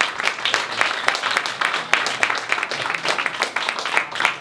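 Small crowd applauding: many hands clapping densely, thinning out and stopping near the end.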